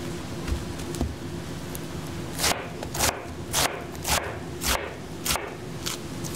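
Chef's knife slicing through a head of iceberg lettuce onto a cutting board: crisp cuts about twice a second, starting after a couple of seconds, with two fainter cuts before, over a steady low hum.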